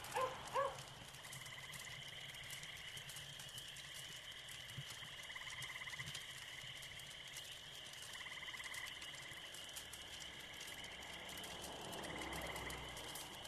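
Night chorus of frogs and insects: a steady high chirring with pulsed trills every couple of seconds, and two short, louder croaks right at the start. Near the end a low rumble begins to build, the first sound of an approaching train.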